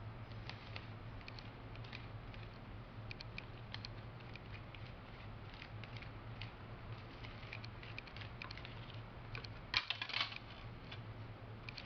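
A plastic scraper spreading powder across a plastic capsule-filling tray: light scattered clicks and taps of plastic on plastic, with a brief cluster of louder clatter about ten seconds in. A steady low hum runs underneath.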